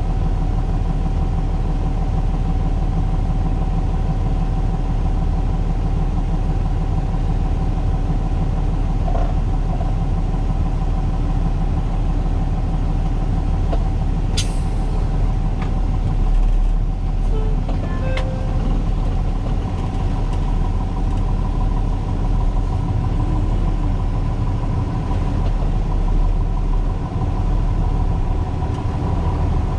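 Peterbilt 337 tow truck's Cummins diesel engine running steadily, heard from inside the cab as the truck moves slowly with a bus in tow. A single sharp click sounds about halfway through, as a dash switch is pressed.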